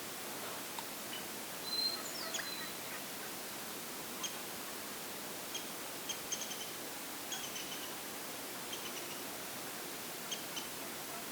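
Small birds calling: short, high chirps, often in quick clusters, scattered over a steady background hiss, with a louder held whistle and a falling glide about two seconds in.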